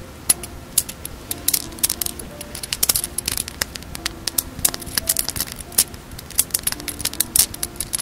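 Dangling beaded earring handled close to the microphone: many quick, sharp clicks and tinkles of the metal hook and beads knocking together in irregular clusters, with soft background music underneath.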